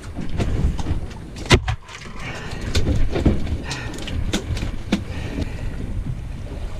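Knocks and taps of a fishing rod and a big red snapper being handled on a fibreglass boat deck, with one loud knock about a second and a half in and several lighter ones after, over a steady low rumble of wind and water.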